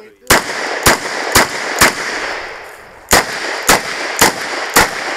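Smith & Wesson 929 9mm revolver fired eight times, in two quick runs of four shots about half a second apart, with a pause of over a second between the runs.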